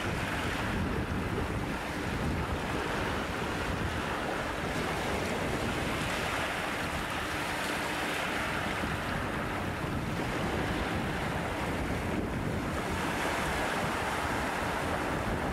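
Small waves washing in over a rocky shoreline, surging and falling back, swelling louder every several seconds, with wind buffeting the microphone.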